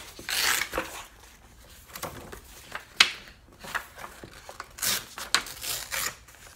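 Paper handling as book pages are flipped and handled: several short rustling swishes of paper, with a few sharp snaps, the sharpest about three seconds in.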